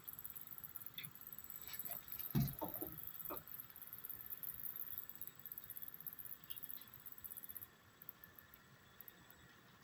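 Model railroad train running on the track: a high-pitched squeaking and fine clicking from the wheels and running gear, which fades about three-quarters of the way through. A single thump about two and a half seconds in is the loudest event.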